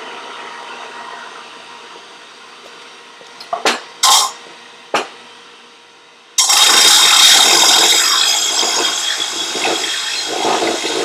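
Skil bench disc sander with a 40-grit pad running, with a few sharp knocks as the turbine housing is set against it. About six seconds in, loud sustained grinding as the housing's flange face is pressed flat against the spinning disc to resurface it.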